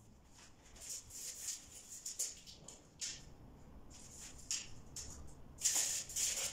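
Sheets of newspaper rustling and crinkling as they are handled and pressed flat against a wall, in a series of short scratchy bursts, the loudest near the end.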